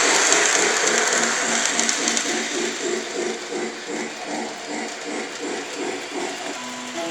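Lionel O gauge model train running around its track loop: a rhythmic clatter of wheels and motor, about three beats a second, fading as the train moves away. Near the end a simple melody of held notes begins.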